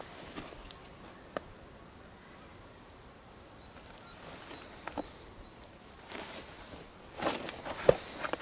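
Woodland outdoor ambience: a few faint clicks, a short run of high bird chirps about two seconds in, then rustling with a sharp snap near the end.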